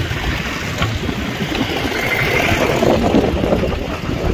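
Twin-engine jet airliner on final approach, its engines a steady rushing noise, mixed with wind buffeting the microphone.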